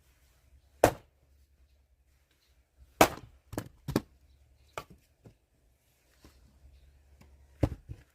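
An axe striking logs to split firewood: a sharp blow about a second in, a louder one around three seconds in followed by a few lighter knocks, and another sharp blow near the end.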